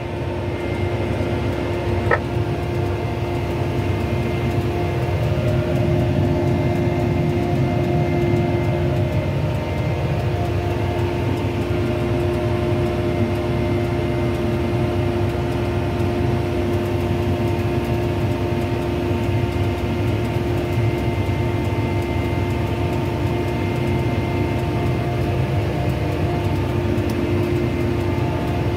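Tractor engine running steadily under load, heard from inside the closed cab: a low drone with a constant whine over it. A single click about two seconds in.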